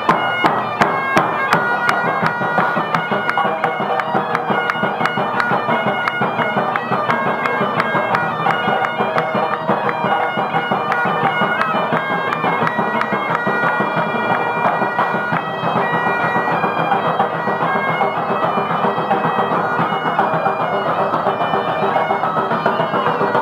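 Two bagpipes playing a lively tune together over a steady drum beat, the drum hits standing out most in the first few seconds.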